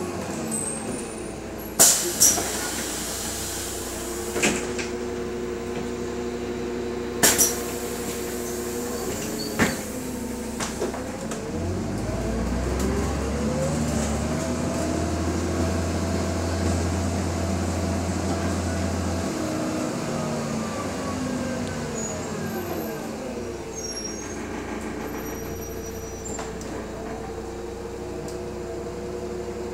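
Interior sound of a BredaMenarinibus Monocar 231 CU natural-gas bus: the engine runs at a steady idle with several sharp knocks in the first ten seconds. About eleven seconds in, the engine note rises with a deep rumble as the bus pulls away, holds for several seconds, then falls back from about twenty seconds as the bus eases off.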